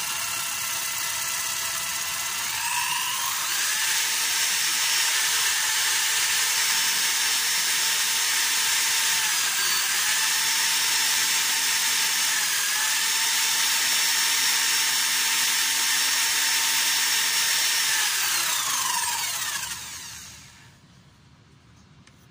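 Electric stone-polishing machine spinning a wooden piece like a lathe, with coarse sandpaper held lightly against it: a steady motor whine over sanding hiss. The whine rises in pitch about three seconds in, then winds down and stops near the end.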